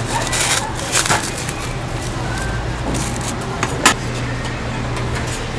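Metal tongs and paper cups clicking and knocking as a hotteok is dropped into a cup and set down on a wooden counter, the sharpest knock a little before four seconds in, over a steady low hum and street background noise.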